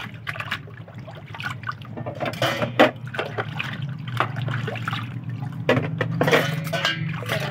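Dishes being washed by hand in a basin of water: irregular splashing and sloshing with plates and utensils knocking together, the loudest a sharp knock just under three seconds in.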